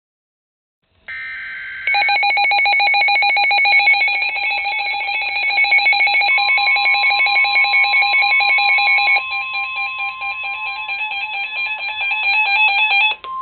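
Midland WR-100 NOAA weather radio sounding its alert. A brief burst of data tones starts about a second in, then the radio's loud, rapidly pulsing electronic alarm begins. About six seconds in, the steady single-pitch NOAA warning alarm tone from the broadcast joins beneath it. The radio's alarm drops in level after about nine seconds and cuts off just before the end, leaving the steady tone.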